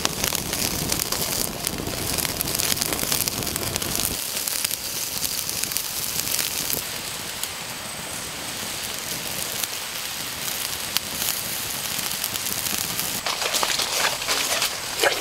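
Wood fire crackling under a flat rock on which octopus is cooking, with a steady sizzling hiss and many small pops. A low rumble drops out about four seconds in, and sharper snaps come near the end.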